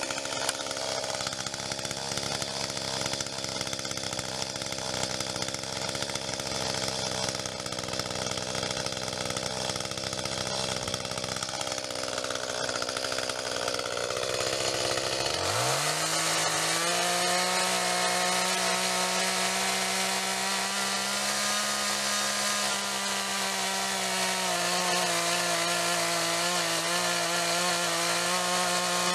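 Echo two-stroke chainsaw running at a lower engine speed, then about halfway through revving up sharply and holding at high speed to the end.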